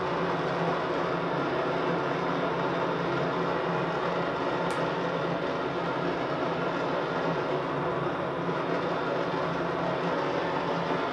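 Gas blowtorch flame hissing steadily as it melts sugar cubes into running caramel, with a brief faint high squeak about halfway through.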